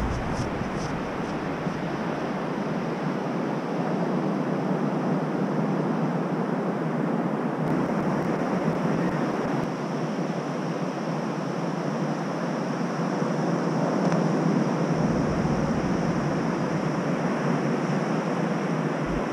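Ocean surf breaking on a sand beach, a steady rushing noise without a break.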